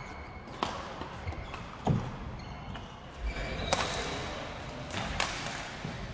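Badminton being played in a sports hall: four sharp racket hits on a shuttlecock, roughly a second or two apart, with short high squeaks from shoes on the court floor.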